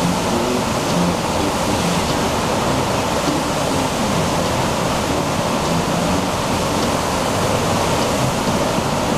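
Steady rush of water from a Wave Loch artificial surf machine, water pumped in a thick sheet up a sloped ride surface to form a standing wave, with a surfer riding it.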